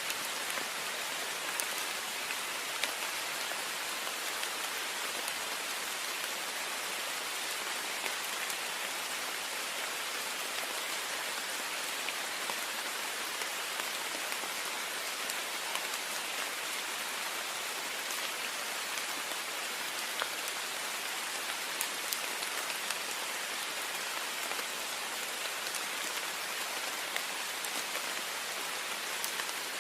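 Heavy rain beating steadily on a window: a dense, even hiss of water, dotted with the sharp ticks of single drops striking the glass.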